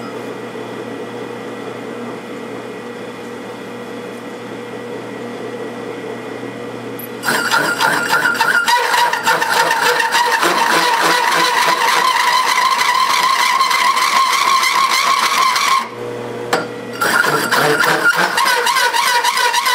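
Drill press with a 2¼-inch Lenox bi-metal hole saw, its motor humming steadily for about the first seven seconds. Then the saw bites into the metal plate with a loud, wavering screech. The cut stops briefly around sixteen seconds, leaving only the hum, then starts again.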